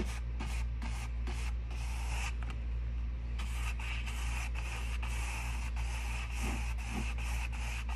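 Flat bristle brush scrubbing paint back and forth across a stretched canvas in quick, even strokes, over a steady low hum.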